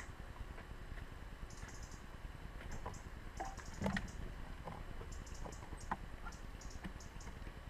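Great tit pecking and picking through loose seeds on a wooden feeder tray: scattered small dry taps and clicks, with one louder knock just before the middle.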